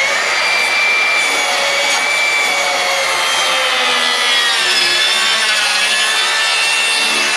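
Makita XSH06 36-volt cordless 7 1/4-inch circular saw, fitted with a Diablo Demo Demon blade, ripping a 2x12 at a steep bevel. The motor whine holds steady with the blade in the wood and dips slightly in pitch mid-cut. It cuts with no effort.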